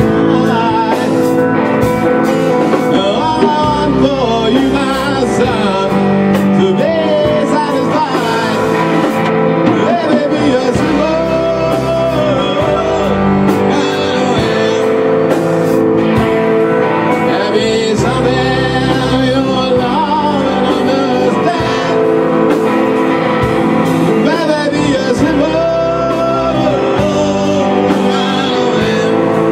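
Rock band playing live in a rehearsal room: electric guitars and a Tama drum kit in a steady blues-rock groove, with a sung vocal over it.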